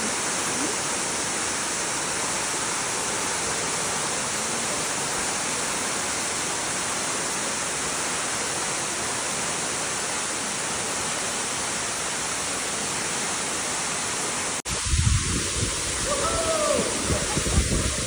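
A waterfall rushing steadily. About fifteen seconds in, the sound cuts abruptly to low, gusty rumbling of wind on the microphone, with faint voices.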